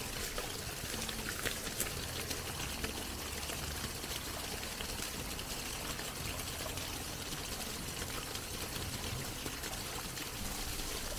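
Spring water pouring steadily out of a pipe outlet and splashing onto rocks and leaf litter.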